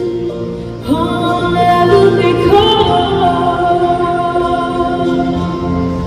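Live band playing a slow ballad: a woman singing long held notes over keyboard, electric bass and acoustic guitar, with a new sung line starting about a second in and climbing higher partway through.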